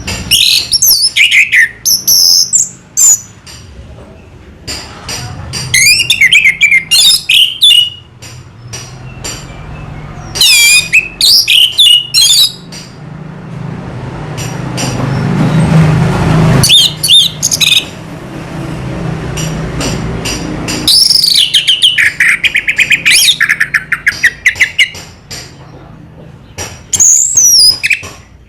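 Orange-headed thrush singing in loud bouts of fast, varied whistles and trills, with short pauses between phrases and many small clicks. About halfway through, a broad rushing noise with a low rumble swells and fades between song bouts.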